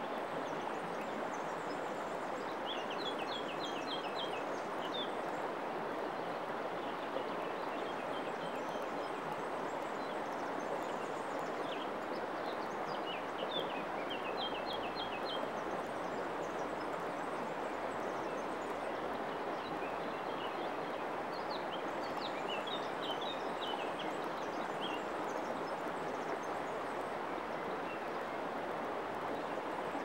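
Shallow river water flowing steadily over a pebbly bed, an even rushing wash. A small bird sings a short phrase of quick high notes three times over it.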